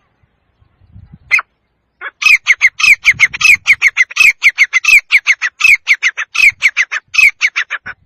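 Male grey francolin calling: one short note, then a long fast run of loud, sharp repeated notes, about six a second.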